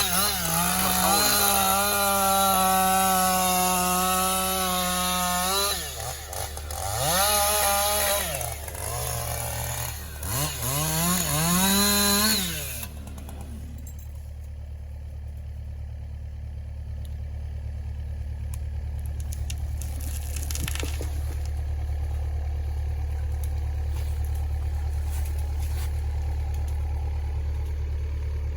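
Chainsaw running at high revs as it cuts into a tree trunk, its pitch dropping and rising again a few times before it stops abruptly about 13 seconds in. After that, the steady low idle of a Kubota mini excavator's diesel engine carries on underneath.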